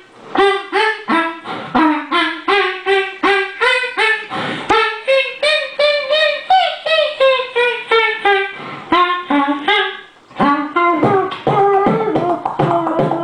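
Human beatboxing into a microphone: a rhythmic pattern of short hummed, pitched notes over percussive mouth sounds, about three beats a second, with the hummed line rising and falling in pitch. It breaks off briefly about ten seconds in, then resumes busier.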